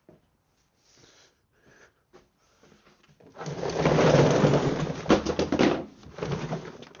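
Tools being rummaged through in a drawer or toolbox: a few light knocks, then loud metallic clattering and rattling from about halfway through, tailing off into quick clicks near the end.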